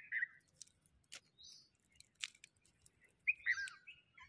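Wild birds chirping in short calls: one right at the start, a higher one about a second and a half in, and a two-part call near the end, with a few light clicks in between.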